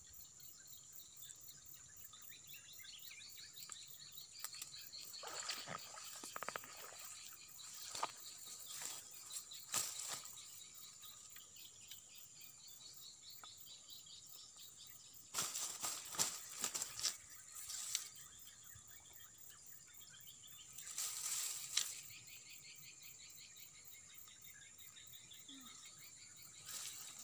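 Insects chirring steadily in the swamp, with several short bursts of rustling in the bankside grass, the longest about sixteen to eighteen seconds in.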